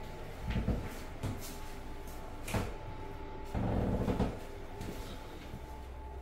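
A few dull knocks and thumps with a sharp click, the kind made by cabinet doors or a door being handled, over a faint steady hum.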